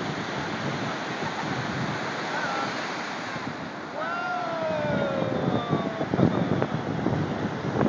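Ocean waves breaking and washing up the shore in a steady rush, with wind buffeting the phone's microphone in low gusts.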